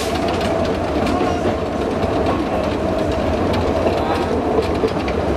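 Narrow-gauge train running along the track, heard from an open passenger wagon: a steady rumble with the wheels rattling and clicking over the rails.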